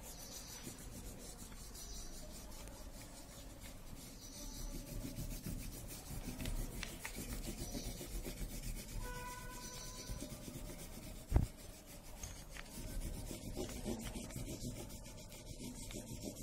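Wax crayon rubbed back and forth over paper laid on a leaf, a continuous rubbing. A single sharp knock about two-thirds of the way through.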